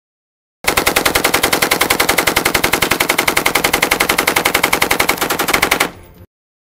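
M249 SAW light machine gun firing one long continuous burst of about five seconds, an even, rapid stream of shots that starts about half a second in and stops abruptly, leaving a brief fading tail.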